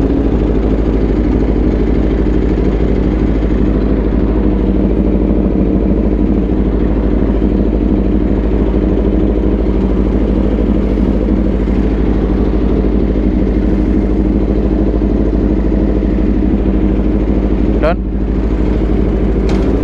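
Aprilia RSV4's V4 engine idling steadily. Near the end a brief high chirp rises quickly in pitch.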